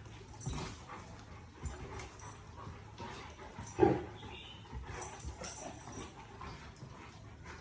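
Dogs making small sounds, with faint whimpering and one short bark a little past halfway.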